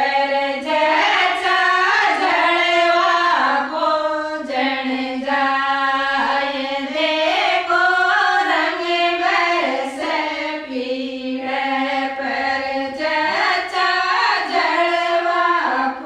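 A group of women singing a Rajasthani jalwa folk song together, unaccompanied, in long drawn-out notes that glide from pitch to pitch.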